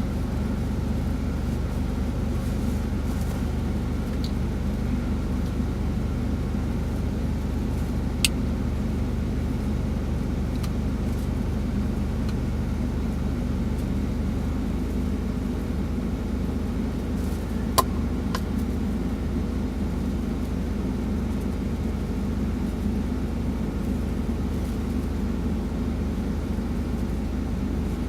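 Semi truck's engine idling with a steady low rumble, heard from inside the cab. Two sharp clicks stand out, about a third of the way through and again past halfway.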